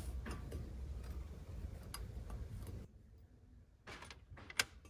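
A few light clicks of small metal parts being handled and set into a Rochester 2-jet carburetor body, the sharpest near the end.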